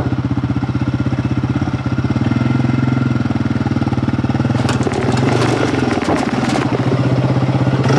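Yamaha Raptor quad's single-cylinder four-stroke engine idling with a steady, even thumping beat. About five seconds in the quad rolls forward up close, its engine note shifting with sharp clicks and rattles over it.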